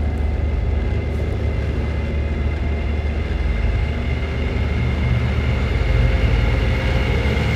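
Dark film-score drone: a heavy low rumble under held high tones, swelling slightly in the second half.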